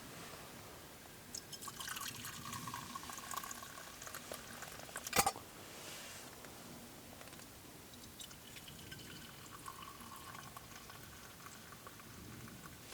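Liquid being poured in two spells, with a single sharp click between them.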